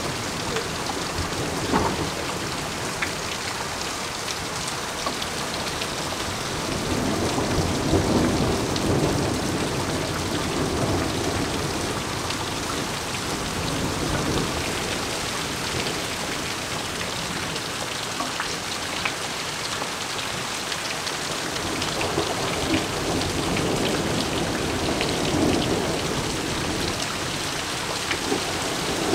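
Heavy downpour in a summer night thunderstorm: rain hissing steadily on the lawn, street and leaves, with close drops pattering, and low thunder rumbling and fading twice, about a quarter of the way in and again late.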